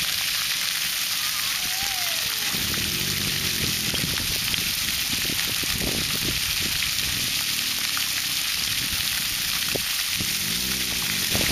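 Splash pad fountain jets spraying up from the pavement and splattering onto the wet ground in a steady hiss.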